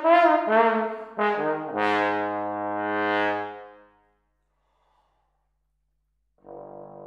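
Solo trombone playing a few short detached notes, then a long low note that swells louder and brighter before cutting off about four seconds in. After a couple of seconds of silence, a quieter steady held tone comes in near the end.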